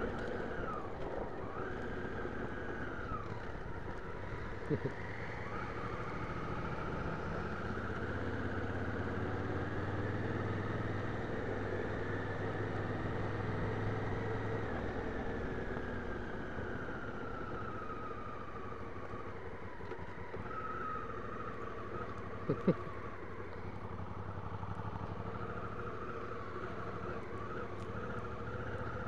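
Honda Africa Twin CRF1000L's parallel-twin engine running on a dirt trail, its pitch rising and falling with the throttle, over a steady rush of wind and tyre noise. Two sharp knocks sound, one about five seconds in and one about two-thirds of the way through.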